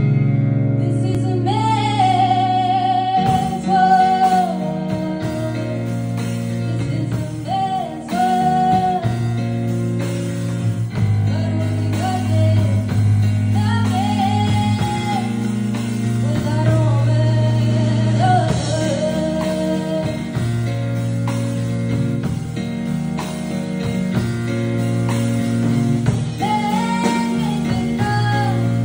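A woman sings a slow song live into a microphone, over keyboard accompaniment playing sustained chords. Her long held notes waver with vibrato.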